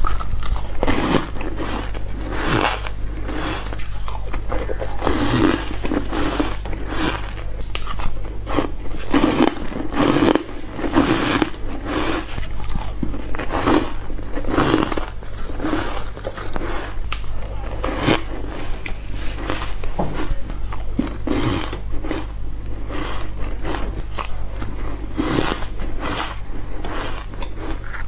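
Ice being bitten and chewed close up: a continuous, irregular series of sharp crunches, over a steady low hum.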